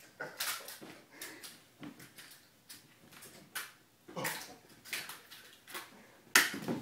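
Irregular thumps and scuffs of kittens jumping and landing, their paws skittering on a hardwood floor and an upholstered armchair, with the loudest thud about six and a half seconds in.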